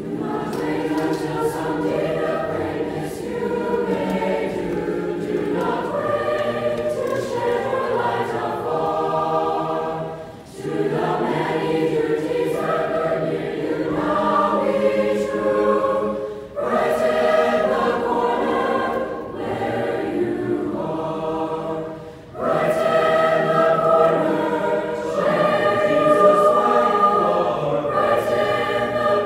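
Mixed youth choir of young men and women singing together, starting right at the beginning and going in phrases with brief breaths about 10, 16 and 22 seconds in.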